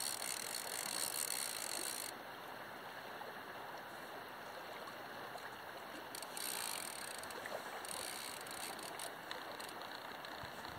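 Steady rushing hiss of flowing river water, its higher hiss dropping a couple of seconds in and returning for a while around the middle.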